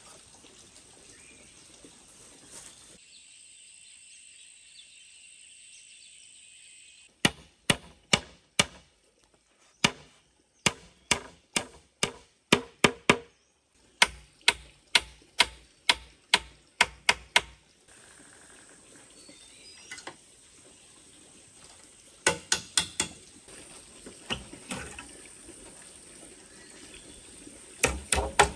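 Hammer blows on a bamboo-and-wood frame: quick runs of about two strikes a second lasting some ten seconds from about seven seconds in, then a few scattered strikes later and a short burst near the end.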